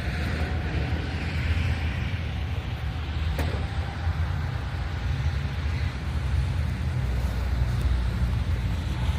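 Poulan Wild Thing 40cc two-stroke chainsaw idling steadily.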